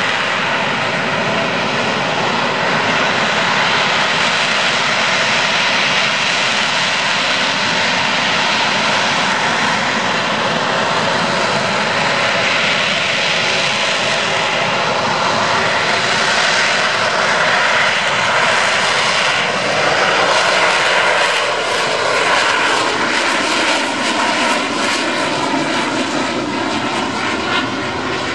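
AV-8B Harrier II's Rolls-Royce Pegasus jet engine, a loud, steady roar with high steady tones running through it as the jet flies slowly past. It drops a little in loudness near the end as the aircraft moves away.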